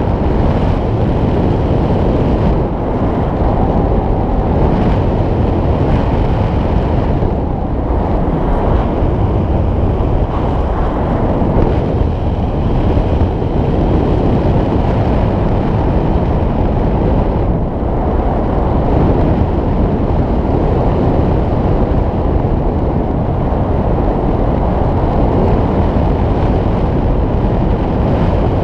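Airflow rushing over an action-camera microphone in paraglider flight: loud, steady, low wind noise.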